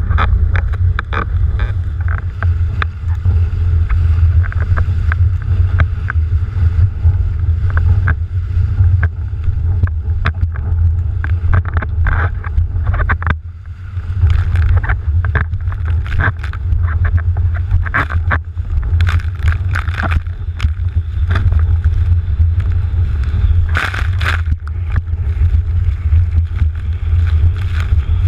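Wind buffeting the microphone of an action camera on a planing windsurfer, a steady low rumble, with water rushing and spray splashing off the board. The sound drops briefly about halfway through.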